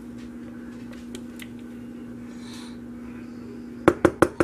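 A steady low hum, then near the end a quick run of sharp knocks, about five a second, much louder than the hum.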